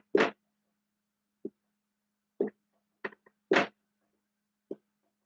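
Dry-erase marker on a whiteboard: a string of about seven short, irregularly spaced scratches as small marks are drawn, the loudest near the start and about three and a half seconds in.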